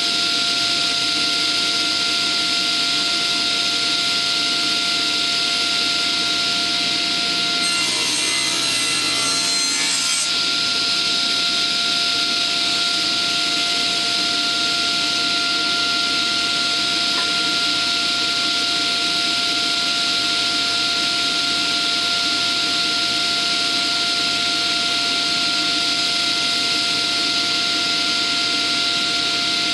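Table saw running steadily with a constant whine while cutting slots in a wooden board; the sound of the cut changes briefly about eight to ten seconds in.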